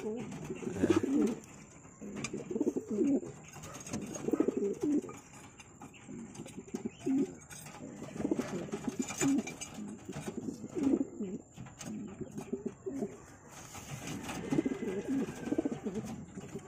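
Racing pigeons cooing in repeated low calls, with short lulls between bouts: the courtship cooing of a cock with a hen just put in with him for pairing.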